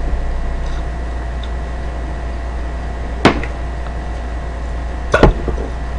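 Steady low electrical hum with faint steady tones above it, broken by two sharp clicks about two seconds apart, the second a quick double click.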